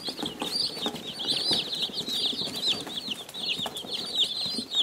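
A box of about 60 Cornish Cross broiler chicks peeping: a dense, continuous chorus of short, high chirps, each dipping in pitch, many overlapping at once.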